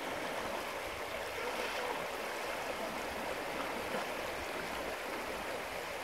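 Shallow, rocky mountain stream running over stones and through small riffles: a steady, even rush of water.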